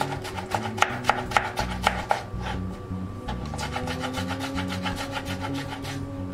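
Chef's knife chopping tomatoes on a wooden cutting board: a fast, even run of knocks, several a second, loudest in the first two seconds.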